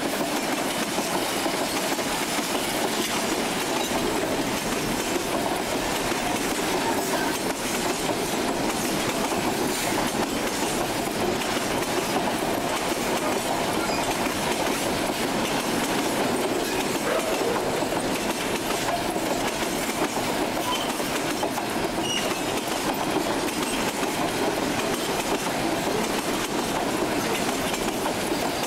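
Freight train cars rolling steadily past close by: steel wheels running on the rails as tank cars and boxcars go by.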